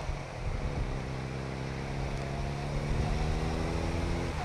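Motorcycle engine running under steady throttle, its note rising slowly as it gains speed, then breaking off sharply near the end.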